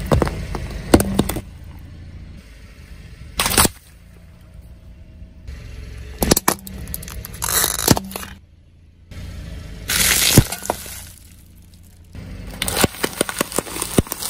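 A car tyre rolling over and crushing a series of objects, heard as separate bursts of cracking and breaking a few seconds apart over a low steady hum. Near the end a rapid run of crunches comes as packets of puffed snacks burst under the tyre.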